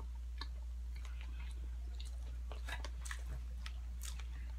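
Close-up chewing and biting of fast food, with many short, sharp crunches and clicks, over a steady low hum.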